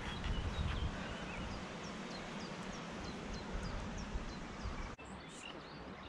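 Small birds chirping and singing over a low outdoor rumble, which drops away after a brief break about five seconds in.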